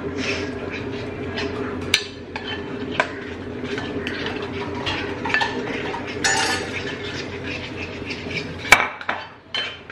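Cauliflower pieces being stirred into a thick fry batter in a bowl, with small clinks of a spoon against the bowl and a few sharper clinks about two and three seconds in and near the end, over a steady hum.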